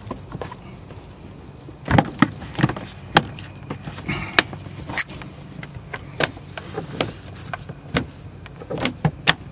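Plastic retaining clips of an Infiniti FX35 liftgate's interior trim panel clicking and knocking into place as the panel is pressed and forced back on by hand, a dozen or so irregular sharp snaps. Crickets chirp steadily behind.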